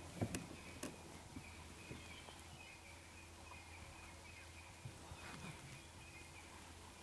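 Faint outdoor ambience: a steady low hum, faint high chirping through the first half, and a few soft knocks in the first second.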